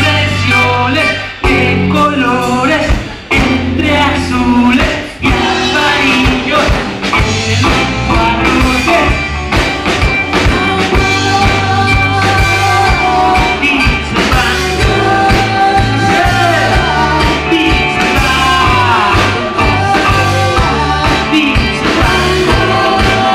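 Live rock band playing: electric guitars, bass and drum kit, amplified through stage speakers, with a voice singing over it in the later part.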